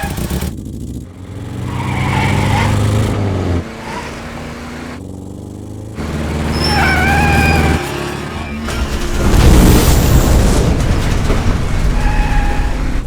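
Car chase sound effects: car engines running and revving with wavering high tyre squeals several times, and a loud heavy rumble about ten seconds in.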